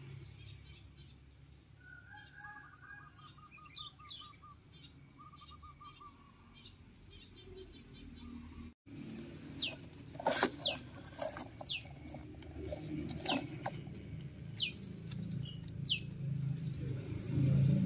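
Wild birds calling outdoors: a short trill early on, then a series of short, high, falling whistled notes about once a second. A low rumble builds near the end.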